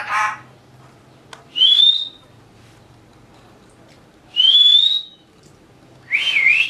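Pet parrot giving three short, squeaky rising whistles, spaced a couple of seconds apart, the last one wavering up and down.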